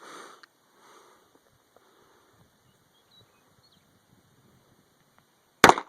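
A single handgun shot near the end: one sharp, loud crack after a few seconds of near-quiet.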